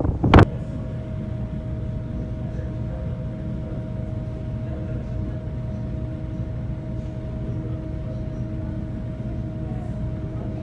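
Steady hum of a large car ferry's machinery, low and even with a few held tones underneath, after a short gust of wind on the microphone that cuts off about half a second in.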